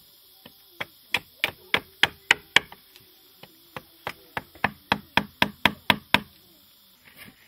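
A carving blade chopping into wood in a quick, even run of about twenty sharp strikes, roughly three a second, with a brief pause about three seconds in. The strikes stop shortly after six seconds.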